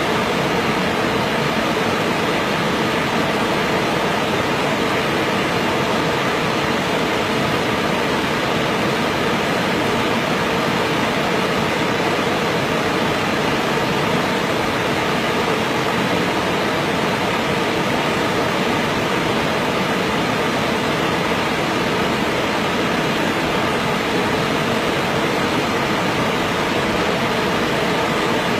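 Steady rush of a fast-flowing stream over rocks, loud and unchanging.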